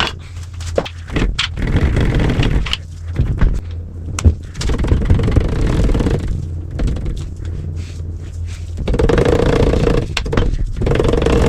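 Hand tools working on the main bearing caps of a Ford FE V8 block: scraping and clinking of metal on metal in three rough spells, with scattered sharp clinks, over a steady low hum.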